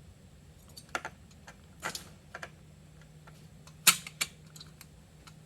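Metal engine-mount hardware and tools clicking and clinking as parts are handled and shifted: a handful of separate sharp knocks, the loudest about four seconds in.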